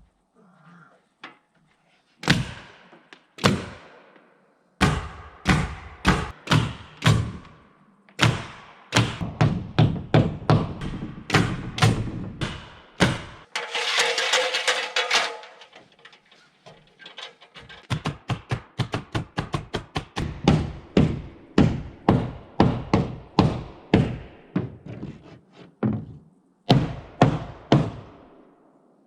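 Nails being hammered into wooden wall sheathing: sharp ringing blows, some single, some in quick runs of about two a second. A short rushing noise lasts about a second and a half near the middle.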